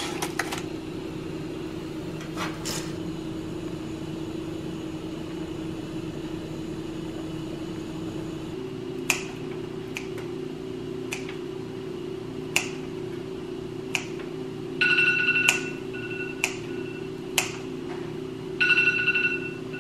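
Kitchen scissors snipping green beans, a sharp snip every second or so starting about halfway through, over a steady low hum. Twice near the end a short high-pitched ringing tone sounds for about a second.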